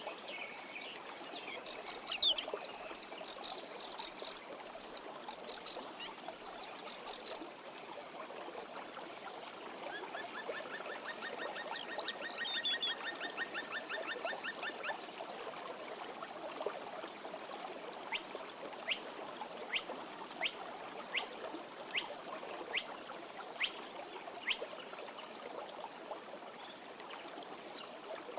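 A stream running steadily, with birds calling over it. There are repeated chirps at first, a fast trill around the middle, a couple of high whistles just after, then a regular run of short chirps about one or two a second.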